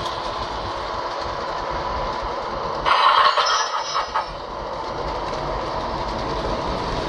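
MTH model New York City subway train running on layout track, a steady rumble of wheels and its onboard sound system. A brief, louder, high-pitched burst lasts about a second, starting about three seconds in.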